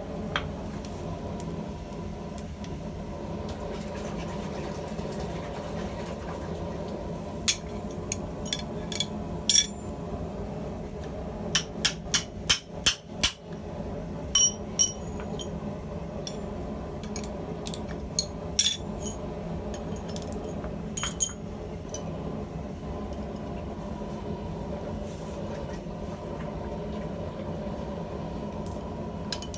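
Small stubby hammer striking a steel rivet head to flatten it: scattered sharp, ringing metal blows, with a quick run of about six strikes around the middle, over a steady low hum.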